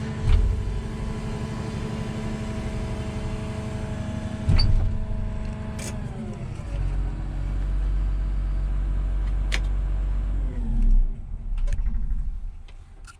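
Cat 335 excavator's Cat C7.1 diesel engine heard from inside the cab, running steadily, then dropping in speed about six seconds in and winding down to a stop around eleven seconds in, with a few sharp clicks along the way.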